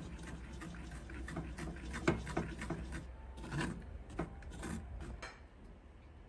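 Wooden spoon scraping and pressing a thick purple sweet potato and oat purée through a fine wire-mesh strainer over a stainless steel pot, in uneven strokes. A few sharper knocks of the spoon against the strainer come between about two and five seconds in, and it goes quieter near the end.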